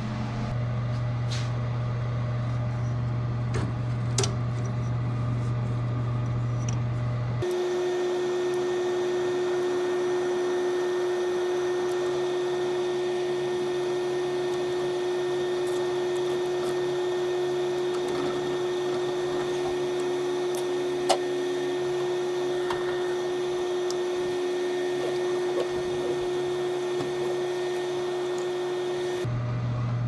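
Steady mechanical hum of a running K40 CO2 laser cutter setup, with a few faint clicks of parts being handled. About seven seconds in, the deep hum gives way abruptly to a higher steady tone, and the deep hum returns near the end.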